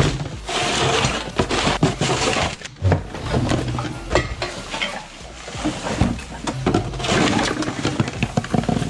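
A shovel scraping across the floor, scooping dry leaves and loose trash such as cans, paper and plastic, and tipping it into a plastic garbage can, with steady rustling and many clattering knocks.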